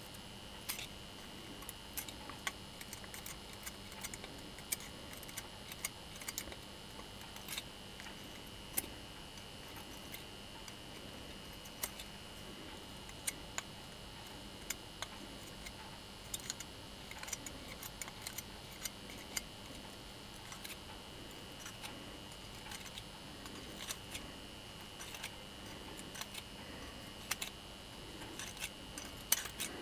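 Scattered small metallic clicks and taps of tweezers against an angle grinder's armature and gear housing as they are handled, over a faint steady high-pitched hum.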